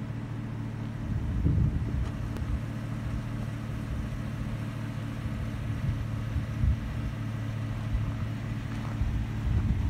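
Steady low hum of an idling vehicle engine, with irregular low buffeting on the microphone about a second in and again near the end.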